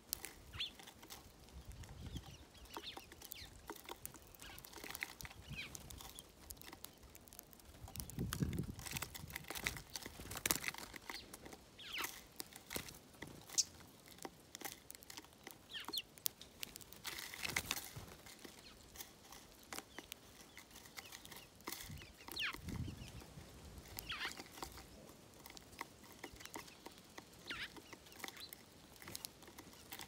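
Sparrows feeding at a wooden tray feeder: a scatter of small taps and clicks as beaks peck seed on the tray, with short falling chirps and a few louder low-pitched calls.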